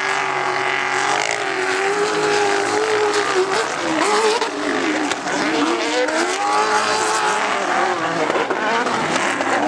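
Rally car's engine running hard on a loose dirt course, its pitch rising and dropping repeatedly as the driver works the throttle and gears through the corners.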